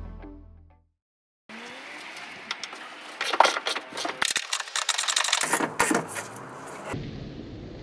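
Music fades out, and after a moment of silence comes irregular clicking and clattering of sheet-metal work, densest in the middle. Near the end it cuts to a steadier workshop background noise.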